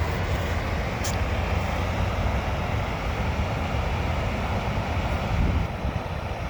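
Waterfall pouring into a river: a steady, deep rushing of falling water.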